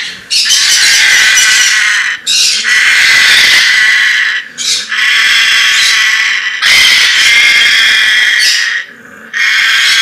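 African grey parrot in its wooden nest box giving long, harsh screeches, about five in a row, each roughly two seconds with short breaks between. This is the defensive screeching of a nesting grey disturbed by an intrusion into its box.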